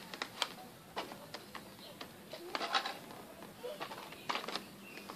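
A cardboard doll box and its plastic packaging being handled and picked open by hand: scattered clicks, taps and short crinkles.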